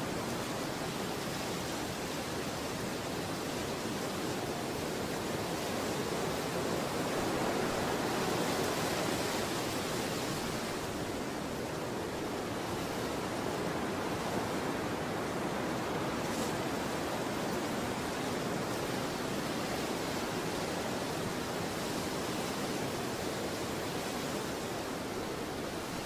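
Steady, even rushing of falling water, a continuous hiss with no breaks, a little louder around eight to ten seconds in.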